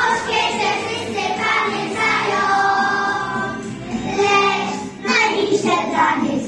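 A group of young kindergarten children singing a song together, in phrases with a brief break about five seconds in.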